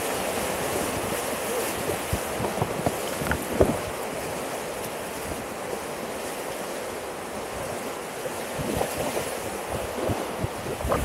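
Whitewater rapids rushing steadily around an inflatable packraft canoe, with short splashes of waves and paddle strokes against the boat, a few sharper ones about three and a half seconds in.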